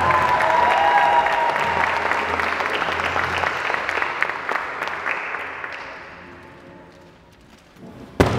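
Audience applauding, dying away after about six seconds. A single sharp knock near the end.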